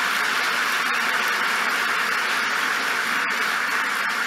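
Large audience applauding: steady, dense clapping.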